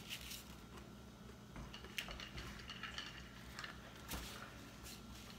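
Faint eating sounds: chewing a shrimp po' boy, with a few short, soft clicks and taps from plates and a cup on the table.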